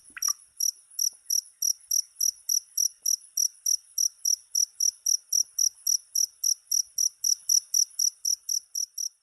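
A cricket chirping in an even rhythm, about four high-pitched chirps a second.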